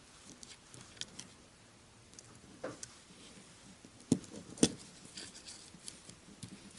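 Small clicks and light ticks of folding-knife parts being handled during disassembly, with two sharper knocks about four seconds in, half a second apart.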